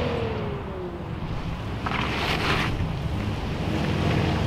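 Engine note of an R32 Nissan Skyline GT-R falling away as the car drives off into the distance. It is followed by a steady low rumble of engines idling, with wind noise on the microphone.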